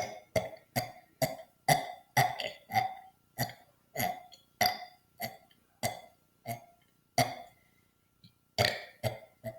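A person burping on command over and over: about eighteen short burps in quick succession, roughly two a second. There is a pause of about a second before the last few.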